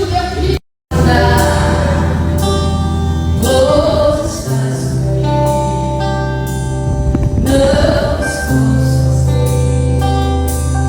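Music with singing over long held bass notes. The sound cuts out completely for a moment just under a second in.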